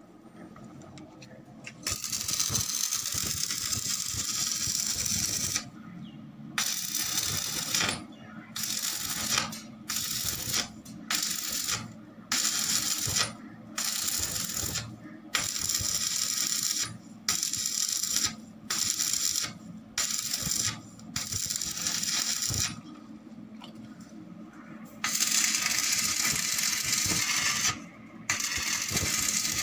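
Electric arc welding on a steel flat-bar frame: the arc crackles and sizzles in one long run, then in a string of short bursts about a second each, pausing briefly, then in two longer runs near the end.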